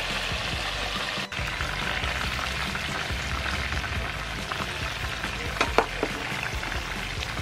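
Chicken wings deep-frying in hot soybean oil: a steady crackling sizzle. A short sharp metal clink sounds a little before six seconds in.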